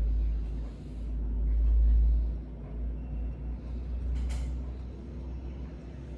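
Low rumble of a vehicle on the move, heard from inside the cabin, swelling loudest about two seconds in. A single sharp click comes about four seconds in.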